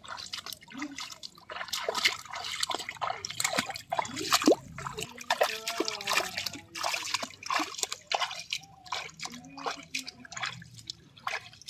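Bare feet wading through shallow muddy water: irregular splashes and sloshes with water dripping.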